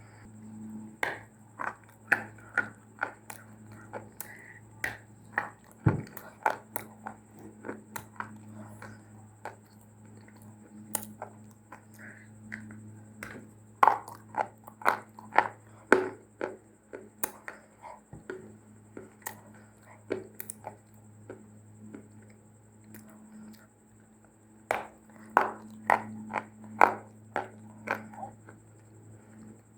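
Someone biting and chewing dry clay (mitti): a string of sharp, irregular crunches and cracks that come in clusters, over a steady low hum.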